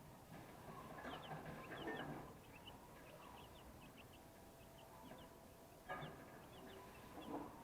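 Young broiler chicks, about 12 days old, peeping: many short, high chirps, faint overall. Louder scuffling noises come about a second or two in, and sharp knocks come near six seconds and again near the end.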